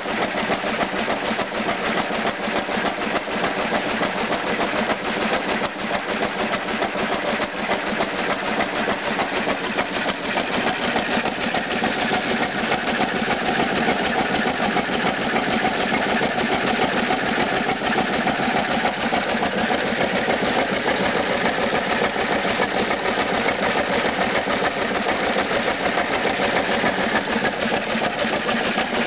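Antique Cushman hit-and-miss engine running and driving a Hardie three-plunger water pump. It makes a fast, steady mechanical clatter.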